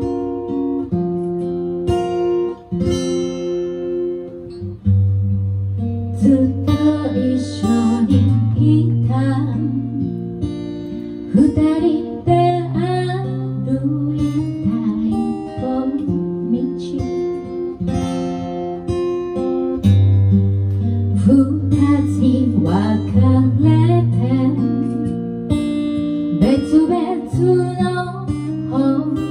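Strummed acoustic guitar playing a song accompaniment, with a woman's singing voice coming in about six seconds in.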